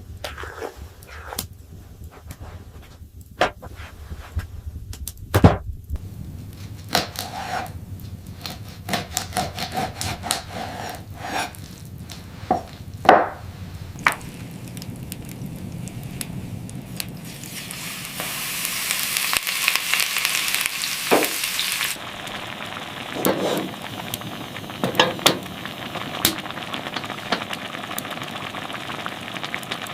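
Scattered knocks and clicks, many in the first half, with a loud hiss from about eighteen to twenty-two seconds in that gives way to a softer steady hiss with a few more knocks.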